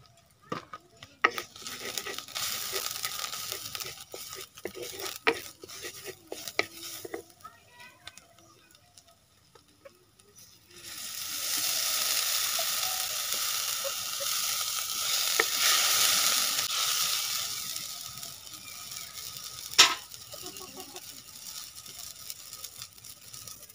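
Dried red chillies sizzling in hot oil in a kadhai, with a wooden spatula scraping and clicking against the pan. About eleven seconds in, liquid is poured into the hot oil and a loud sizzle bursts up, then dies down over several seconds. A single sharp knock comes near the end.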